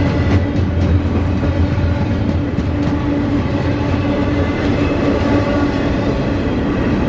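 Cars of a long CSX intermodal freight train rolling past: a steady rumble with a held hum and light clicking from the wheels.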